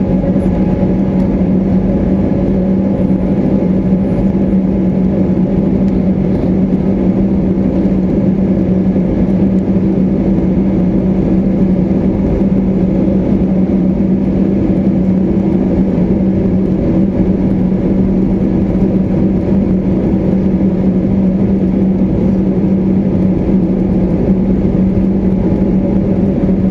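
Airbus A320neo cabin noise from a window seat: the engines and airflow make a steady, loud drone with a constant low hum through it.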